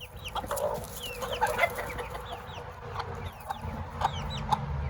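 Chickens clucking in short repeated notes, with a young chick peeping over them in quick, high, falling peeps.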